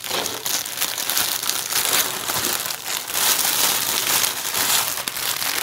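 Plastic packaging crinkling continuously as it is handled, with many small crackles.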